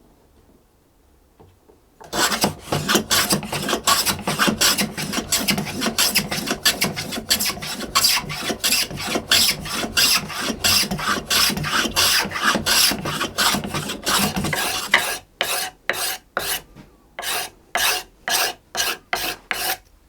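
Quick, repeated strokes of a hand tool shaving the wood of a new violin fingerboard, starting about two seconds in. Near the end the strokes slow to separate passes, about two a second.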